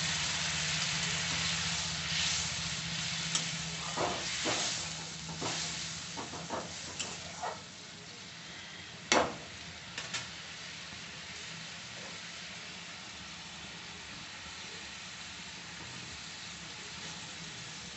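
Curry gravy simmering and sizzling in a metal kadai with a steady hiss. A spatula stirs and scrapes the pan between about two and ten seconds in, with a sharp clack of metal on the pan about nine seconds in. A low hum fades out about six seconds in.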